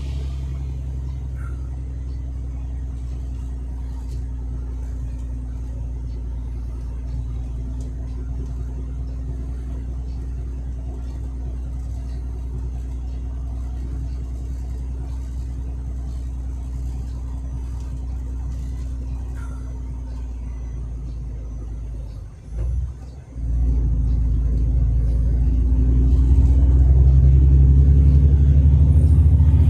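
Truck engine running steadily while driving, heard from inside the cab as a low hum. About three-quarters of the way through it briefly drops away, then comes back louder and stays louder.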